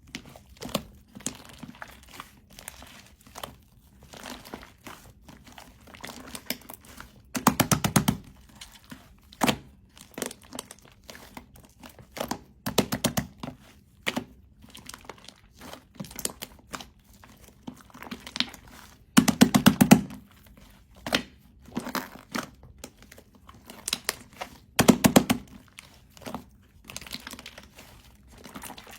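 White shaving-foam slime being squished and pressed by hand, giving off crackling, popping clicks. It comes in repeated short runs, the loudest about two-thirds of the way through.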